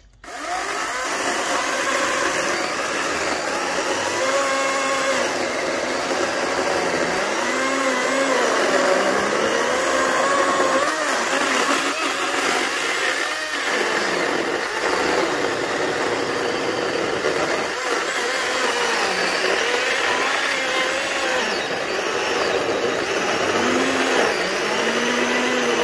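Greenworks 80V battery chainsaw cutting through oak sawmill slabs, its electric motor and chain running continuously. The motor's whine dips in pitch and recovers several times as the chain loads up in the wood.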